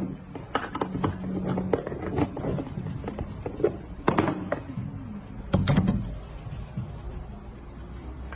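Sharp metal clinks and knocks as a small metal pressure popcorn pot is handled, closed and set on its stand and burner, the loudest about four and five and a half seconds in, over a low steady hum.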